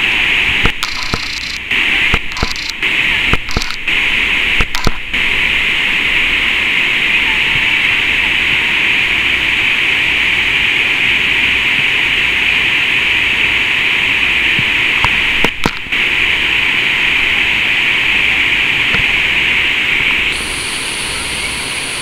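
Steady rushing of a wide, low waterfall pouring over a rock ledge across a river. The sound cuts out briefly several times in the first five seconds and once around fifteen seconds in, and about twenty seconds in it drops and turns quieter and thinner.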